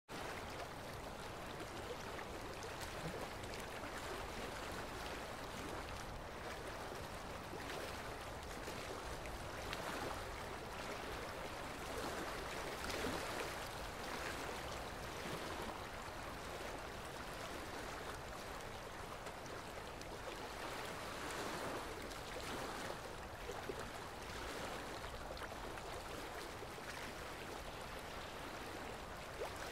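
Dental ultrasonic scaler running with its water spray against the teeth, a steady watery hiss that swells a little now and then as the tip chips thick tartar off the teeth.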